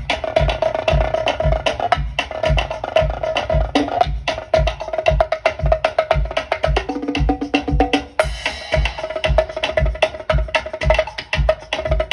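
Drum kit played in a busy groove over a steady kick-drum pulse of about two to three beats a second, with a cymbal crash about eight seconds in. A held pitched tone and shifting notes sound underneath.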